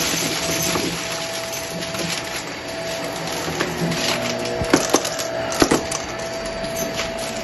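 Shark vacuum cleaner running with a steady motor whine while sucking small hard beads out of carpet, which crackle and rattle up the nozzle. A few sharper cracks come about five seconds in.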